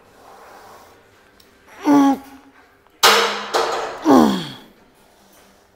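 A man's short effort groans, each falling in pitch, about two seconds in and again about four seconds in, with a sudden harsh burst of noise between them: straining under load during a set of cable flies.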